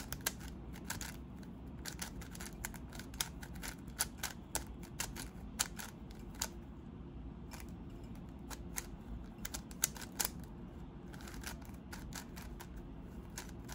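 GAN 11 M Pro magnetic speed cube being turned by hand: quick, irregular plastic clicks and clacks as the layers turn and snap into place, over a low steady hum.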